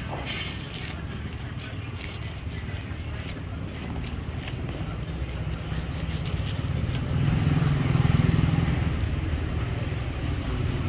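Low rumble of a motor vehicle going by, growing louder about seven seconds in and easing off toward the end.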